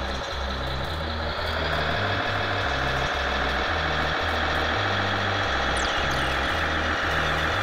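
Radio-controlled MAN 6x6 tipper truck model driving up a dirt pile: its drive whines steadily, rising in pitch and getting louder about a second and a half in as it climbs. A repeating deep bass pattern runs underneath.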